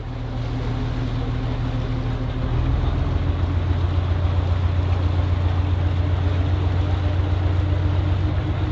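Passenger boat's engine running with a steady, low, rapidly pulsing note. About two and a half seconds in, the note drops slightly and grows louder, as if under more throttle.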